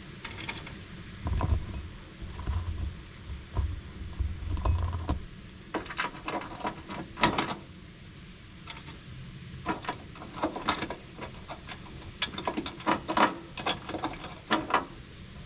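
Small metal parts and hardware clinking and clattering as they are handled, with dull low thumps in the first few seconds.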